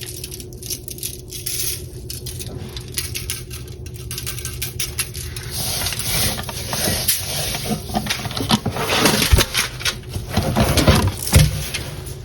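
Spice shaker of celery salt being handled and shaken over ribs, with rattling and small clicks that grow busier in the second half and two heavier knocks near the end. A steady low hum runs underneath.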